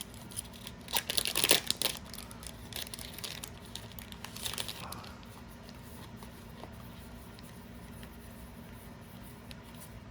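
A trading card booster pack's foil wrapper being torn open and crinkled, loudest about a second in. It settles to faint handling noise after about five seconds.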